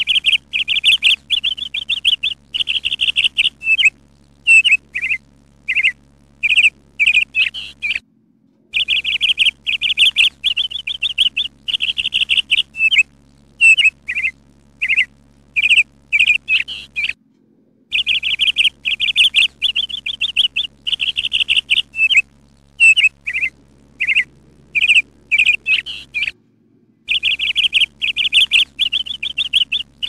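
Small songbird chirping: a rapid high trill lasting a few seconds, then a run of separate short chirps. The same sequence comes round again about every nine seconds, broken by brief complete dropouts, like a looped recording.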